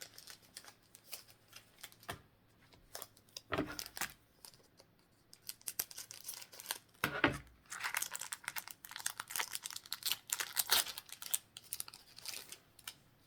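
Pokémon booster packs and trading cards being handled: foil wrapper crinkling and cards rustling and flicking. There are soft knocks about three and a half and seven seconds in, and a quicker run of rustles later.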